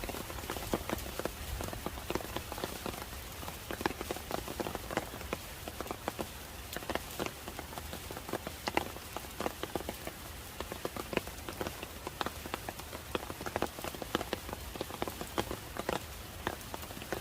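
Steady rain falling, with many separate raindrops striking close by at irregular intervals over an even hiss.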